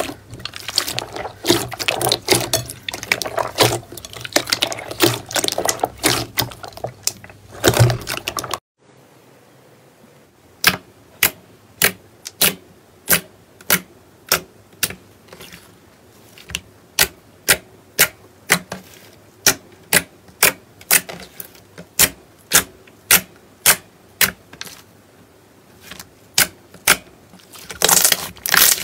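Slime being squished and kneaded, with dense wet crackling and popping. It cuts off suddenly about eight seconds in. Then come single sharp, crisp clicks or pops, about one and a half to two a second.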